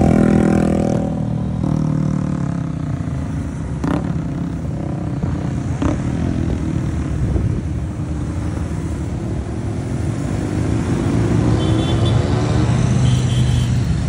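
Motorcycles riding past one after another. One engine note falls away in the first second as that bike goes by, and another rises in pitch and loudness over the last few seconds as the next bike approaches.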